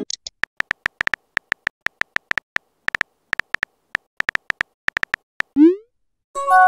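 Phone keyboard typing sound effect: quick, irregular taps, about five a second, as a text message is typed. About five and a half seconds in comes a short rising whoosh as the message is sent, and near the end a brief electronic chime.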